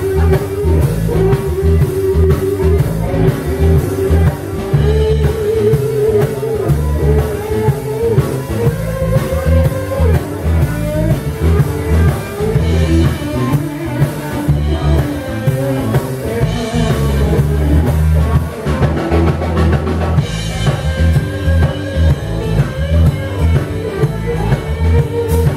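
Live band playing a rock-style number: electric bass, electric guitar and drum kit, with a steady beat.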